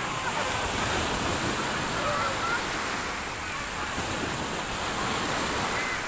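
Sea surf washing on a shore, a steady rushing noise that swells only slightly.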